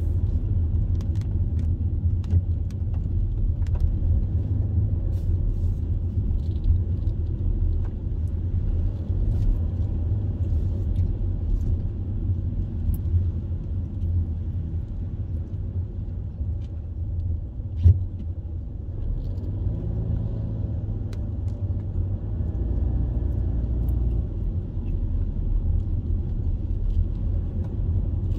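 Steady low rumble of a car driving on a wet road, heard from inside the cabin, with scattered light ticks and one sharp thump about two-thirds of the way through.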